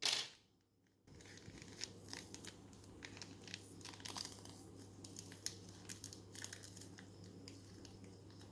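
A short loud rustle right at the start, then a plastic ziplock bag crinkling and rustling in irregular short bursts as it is handled.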